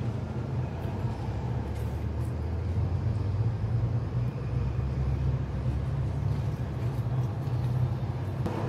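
A steady low rumbling hum of background noise, like machinery or distant traffic, holding level without a break.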